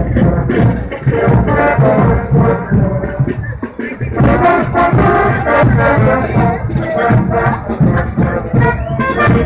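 Brass band playing lively dance music with a steady drum beat, loud and continuous.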